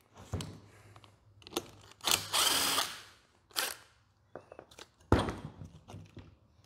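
Cordless Ryobi impact driver running in a burst of about a second, driving a socket on the clutch of a Ford scroll A/C compressor, with a shorter burst after it. Scattered clicks of metal parts being handled, and a heavy knock near the end.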